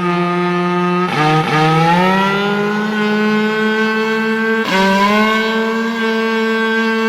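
Cow horn blown in long held notes, with a brief break about a second in and again past the middle. Each new note slides up in pitch and settles a little higher than the one before.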